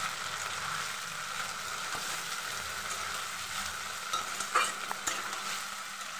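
Tomato paste and potato pieces sizzling in hot mustard oil in a kadai while being stirred with a spatula: a steady frying hiss. A couple of sharp knocks of the spatula on the pan come about four and a half seconds in.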